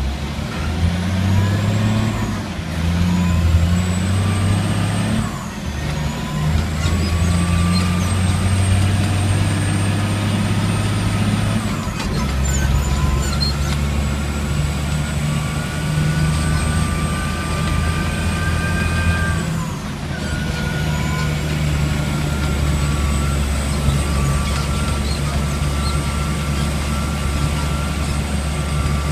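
Caterpillar 725 articulated dump truck's diesel engine pulling as the truck drives, heard from inside the cab. A high whine climbs and then breaks off four times, with the engine's pitch stepping at the same moments, as at gear changes.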